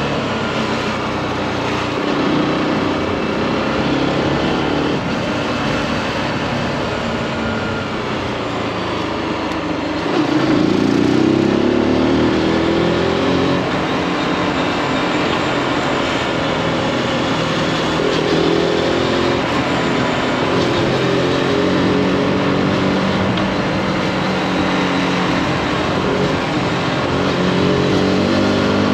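Zontes G1's single-cylinder four-stroke engine pulling the motorcycle along, under a steady rush of wind noise. The engine note rises sharply about ten seconds in as the rider opens the throttle, and again more gently later, then holds.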